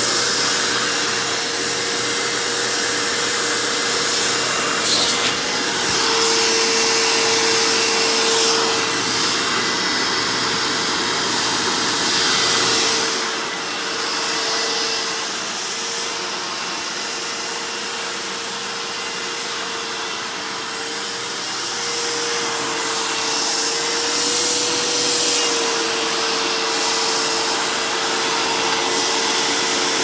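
Dirt Devil Featherlite upright vacuum's 12-amp bypass motor running in tool mode with air drawn through the hose: a steady whine over rushing air. For several seconds in the middle the sound drops a little in loudness, and the whine wavers slightly in pitch.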